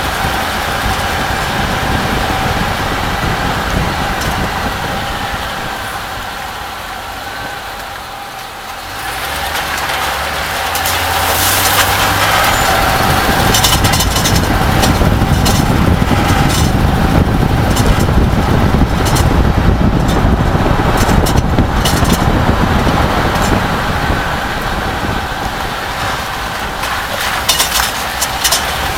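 2004 Chevy Silverado 1500 driving slowly, its engine and road noise easing off and then picking up again about nine seconds in. Over that noise come clusters of sharp metal rattling, in the middle and again near the end. This is the unidentified rattle from underneath the truck that the owner hears only over bumps at low speed.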